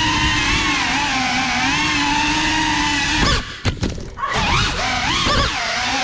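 Small FPV quadcopter's motors and propellers whining steadily, the pitch wavering with the throttle. About three seconds in the whine drops away for roughly a second, then comes back.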